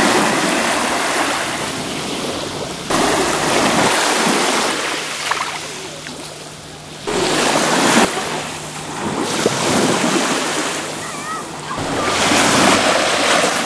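Small waves washing up over gritty sand at the water's edge and drawing back. The wash swells three times, with sudden rises about three and seven seconds in and another near the end.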